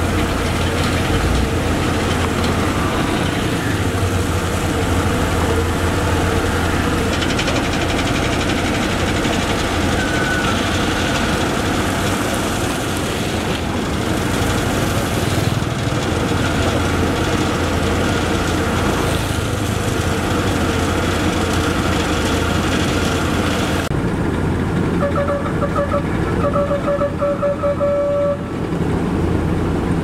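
Heavy diesel road-paving machinery running steadily: asphalt paver, dump truck and road roller engines together. Near the end there are a few seconds of rapid, repeated electronic beeping.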